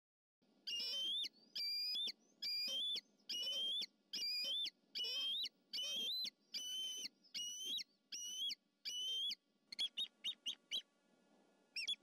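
Bald eagle calling: about ten drawn-out, high whistled notes at roughly one a second, then a quick run of short piping notes near the end.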